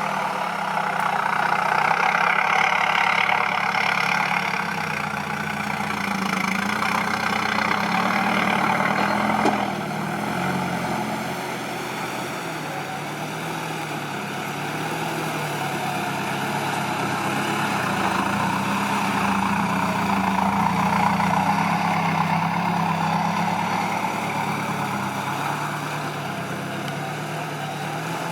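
Heavy diesel engine of construction machinery running and working under changing load, its pitch rising and falling. It is louder for the first ten seconds, then drops suddenly and settles lower.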